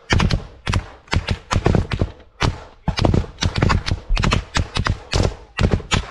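Close small-arms gunfire: a rapid, irregular string of sharp rifle shots, often in quick pairs and triplets, about five a second.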